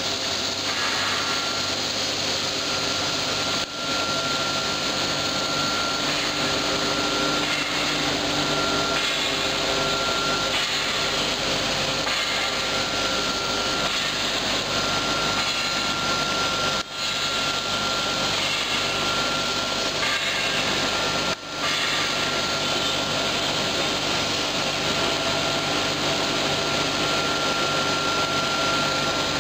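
WPC flooring extrusion line running: a steady mix of water spraying over the profile in the cooling tank and machinery noise, with a steady whine on top. The sound dips briefly three times.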